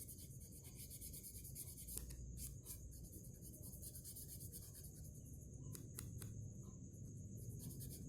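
Faint scratching of a colouring tool on paper in short, irregular strokes.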